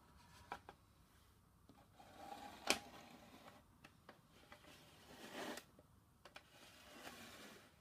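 Faint handling noise: scattered small clicks and rustles, with one sharp click about two and a half seconds in and a short scraping rustle around five seconds in.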